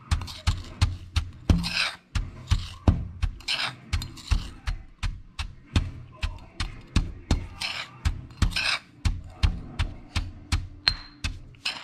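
Stone pestle pounding in a granite mortar, about three dull thumps a second, crushing a dry mix of salt, chili and sugar, with a gritty scrape at each stroke.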